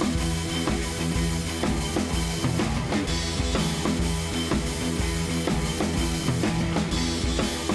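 Background rock music with a steady drum-kit beat, bass drum and snare, over sustained instrument tones.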